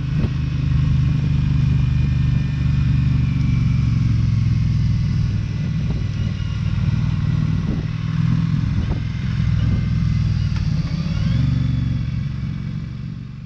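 Motorcycle engine running steadily under way, a low even drone with some road and wind noise over it. It fades out near the end.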